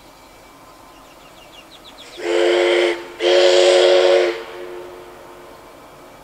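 Steam whistle of NSW 59 class locomotive 5917 sounding two blasts, a short one then a longer one. Each is a steady two-note chord with steam hiss, and the second dies away gradually as it closes.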